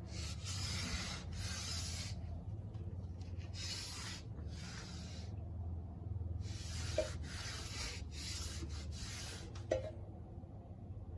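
Scrubbing on a dirty window frame and glass: a rough rubbing noise in uneven bursts of strokes with short pauses, and two light knocks, about seven and ten seconds in.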